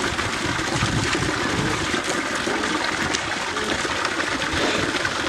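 Water gushing steadily from a makeshift standpipe's two outlets and splashing into plastic tubs.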